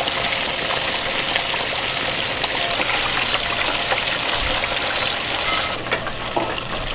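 Flour-dusted yellowtail snapper fillets frying in an electric deep fryer: a steady, dense crackling sizzle of the hot oil bubbling around the fish.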